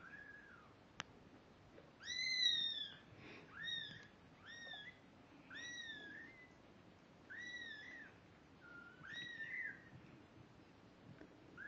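Two-week-old snowshoe Siamese kittens mewing: about eight high-pitched mews, each rising then falling, a second or so apart. A single sharp click about a second in.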